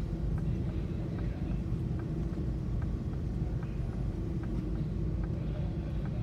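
Low, steady engine rumble heard from inside a car's cabin on a ferry's enclosed vehicle deck, with a faint tick repeating about twice a second.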